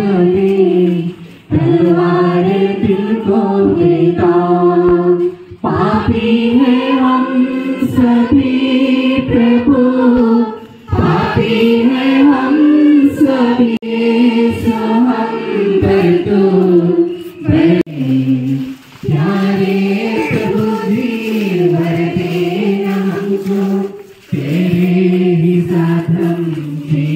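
A group of voices singing a hymn together, in long phrases of held notes with short breaks between them.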